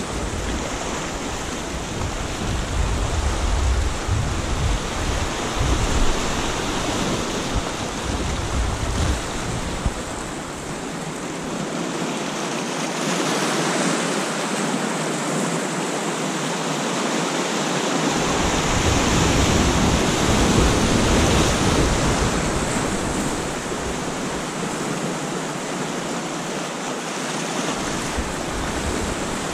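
Sea surf washing over and around coastal rocks, waves swelling and breaking in slow surges, with wind rumbling on the microphone in stretches.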